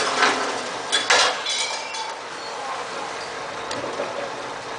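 Overturned truck-mounted crane settling at the quay: a few sharp metallic clanks and a brief high squeal, over a wash of splashing water that dies away in the first second.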